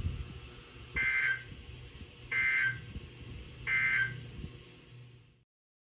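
Three short bursts of NOAA Weather Radio SAME digital data tones, a warbling two-tone buzz about 1.4 s apart: the End of Message signal that closes the required weekly test broadcast. A low thump comes just before them, and the sound cuts off shortly after the last burst.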